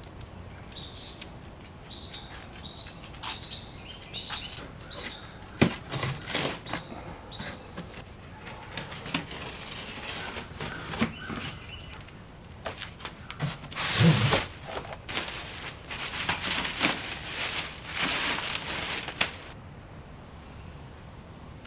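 Unpacking noise from a generator being taken out of its shipping carton: sharp knocks and bursts of rustling and scraping in three clusters, the longest near the end. A few short high chirps sound in the first few seconds.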